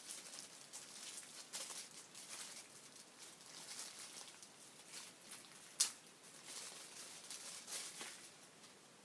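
Packaging being handled and unwrapped: soft rustling and scratching with scattered small ticks, and one sharp click about six seconds in.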